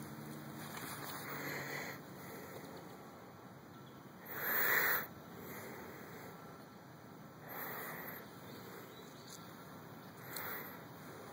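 Yorkshire terrier sniffing close to the microphone: three short breathy bursts, the loudest about four seconds in, the others near eight and near ten and a half seconds, over a faint steady hiss.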